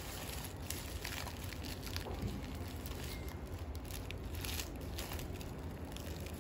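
Soft rustling and crinkling of gift wrapping and packaging being handled, with scattered light clicks, over a steady low hum.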